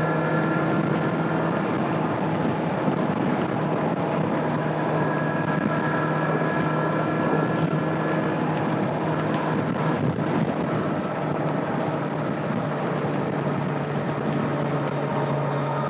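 2025 Kawasaki Z900's inline-four engine through its stock exhaust, running at a fairly steady pitch while cruising, with only small changes in pitch. Wind rush on the microphone runs under it.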